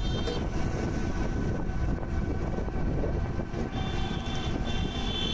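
Steady low rumble of road and traffic noise heard from a moving battery-powered e-rickshaw. A thin, high steady tone joins near the end.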